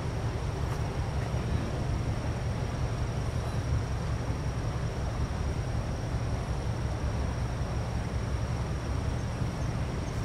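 Steady outdoor rumble and hiss by the water, mostly wind buffeting the microphone, with a faint thin high tone running through it.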